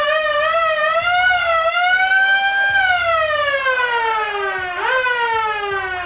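Police car siren sounding: a fast wavering tone that then rises slowly and slides down in a long falling glide. Near five seconds it jumps briefly up and falls again, getting quieter toward the end.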